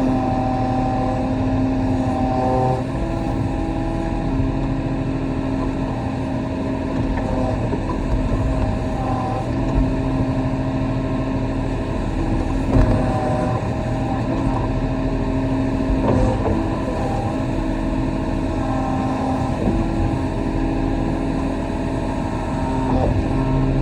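Diesel engine of a Kobelco SK35 mini excavator running steadily under working load, its pitch shifting a few times, with a few short knocks.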